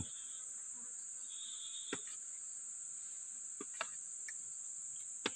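Steady, high-pitched drone of forest insects, with a few faint clicks now and then.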